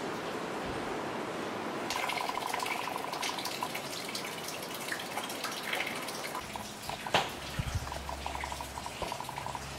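Rainwater dripping and pattering inside a derelict building, with many scattered small drips and one sharper knock about seven seconds in. A low steady hum comes in about halfway through.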